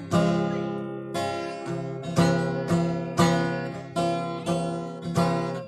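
Acoustic guitar strummed in a steady rhythm, about two chords a second, each ringing and fading, as an instrumental break in the hymn accompaniment with no voice over it.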